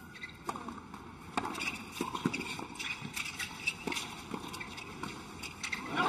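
Tennis ball striking racquets and bouncing on the court: a run of sharp knocks, about three a second.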